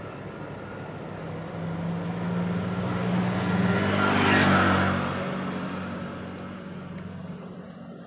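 A motor vehicle's engine passing by, growing louder to a peak about four and a half seconds in and then fading away.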